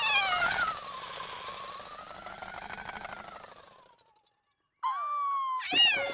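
A cartoon ice cream truck's puttering motor with a wavering tone, fading away over about four seconds as it drives off. After a moment of silence, a cartoon character's voice whimpers sadly in swooping, falling glides.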